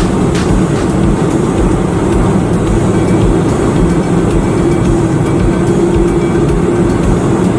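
Loud, steady rush of air and engine noise inside an Airbus A321-200's cabin with its emergency exit door open in flight, a constant hum running under the wind noise.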